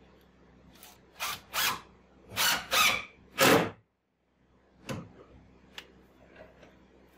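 Cordless drill-driver running in five short bursts, driving screws into a plywood hull panel. A single sharp click follows about five seconds in.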